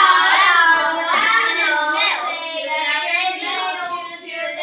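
A class of children reading a sentence aloud together in chorus, many young voices in a drawn-out, lilting unison.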